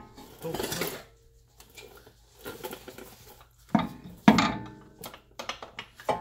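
A few sharp metallic clanks with a short ring, the loudest about four seconds in, after some scraping in the first second. This is a Honda Prelude's driver's-side CV axle being worked and knocked into the transmission.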